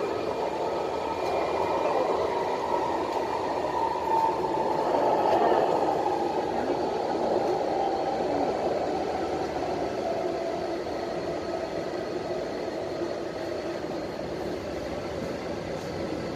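MTR West Rail Line C-Train heard from inside the carriage: a steady rumble of wheels on rail with a faint motor whine. The whine slowly drops in pitch and the noise eases off over the last half, as the train brakes into a station.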